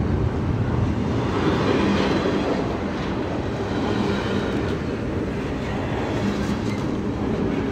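Double-stack intermodal container well cars of a freight train rolling slowly past up close: a steady rumble of steel wheels on the rails, with a few light clicks.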